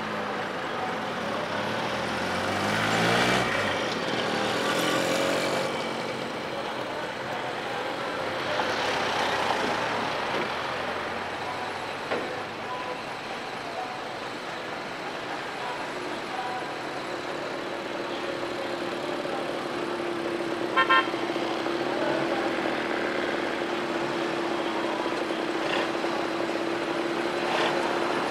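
Old lorries driving past on a road, engine and tyre noise swelling and fading with each pass. About 21 s in, a quick horn toot of a few short pulses is the loudest sound. From about 17 s on, a steady engine hum holds to the end.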